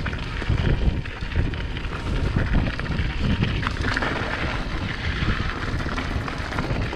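Wind buffeting the microphone over the rolling noise of mountain bike tyres on a dirt singletrack, with short rattles and clicks from the bike over the bumps.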